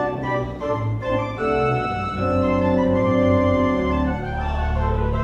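Pipe organ playing loud sustained chords over deep pedal bass notes, the chords changing several times.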